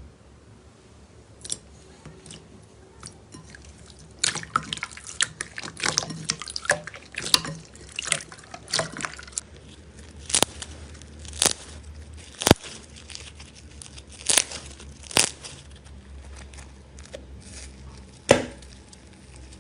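Slime being squished and poked by hand: a quick run of sticky wet clicks and pops, then single sharp pops a second or two apart.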